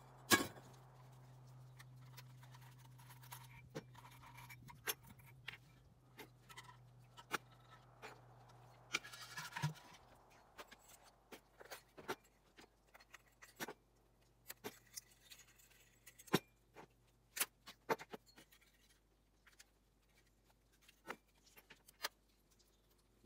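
Metal parts of brass table lamps being handled and taken apart by hand: irregular light clinks, clanks and scrapes.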